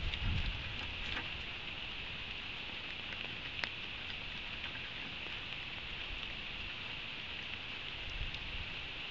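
Steady hiss of rain falling on the nest platform, with a few low thumps in the first second and a single sharp tick about three and a half seconds in.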